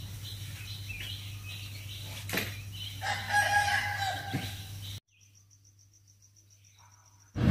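A rooster crows once, a drawn-out call about three seconds in, over a steady low hum. The sound cuts off abruptly at about five seconds, leaving near silence with a faint pulsing high tone.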